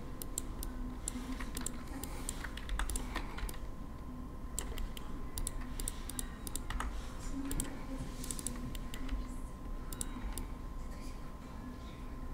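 Computer keyboard keys clicking in short irregular clusters as shortcuts and values are typed, over a faint steady hum.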